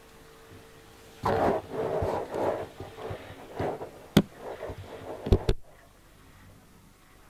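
Grass rustling and handling noise on the camcorder microphone as the camera is pushed out through the vegetation, with two sharp clicks near the end; the sound cuts off suddenly.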